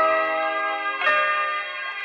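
Background music: slow, bell-like struck notes that ring on and fade, a new one about every second.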